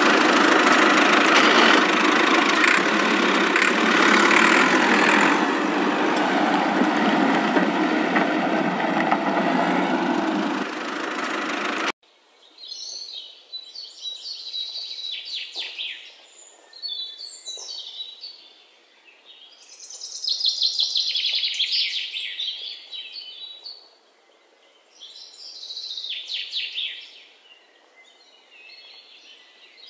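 Steady engine noise that cuts off abruptly about twelve seconds in, followed by birds chirping on and off.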